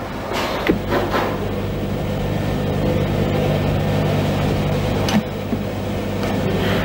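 Steady low machine hum of running desktop computers and their CRT monitors in a small room, with two brief knocks.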